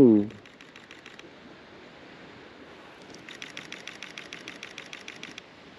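Camera shutter firing in rapid bursts of about ten frames a second: a short burst just after the start, then a longer burst of about two seconds from about three seconds in.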